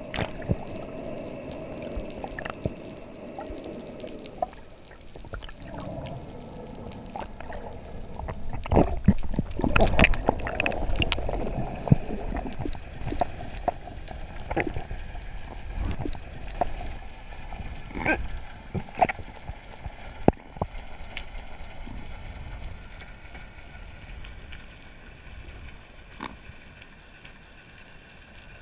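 Underwater sound picked up by a diver's camera: a low rush and gurgle of moving water, with scattered sharp clicks and knocks that bunch together around ten seconds in.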